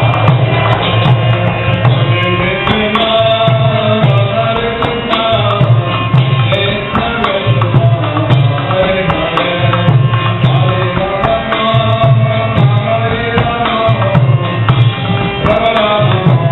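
Devotional kirtan: voices chanting a melody over a steady, rhythmic hand-drum beat.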